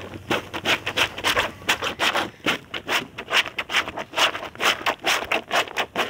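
Homemade plunger washer, a plastic bottle on a wooden stick, pumped up and down through soapy water and wet clothes in a plastic bucket. It makes quick rhythmic wet swishes, about three strokes a second.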